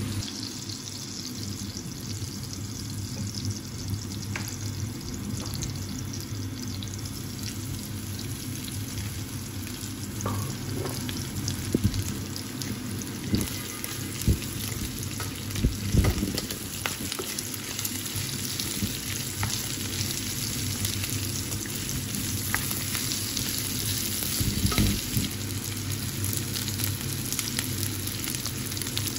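Vegetables, then chicken strips, sizzling steadily in hot oil in a non-stick frying pan. A few sharp knocks around the middle and near the end.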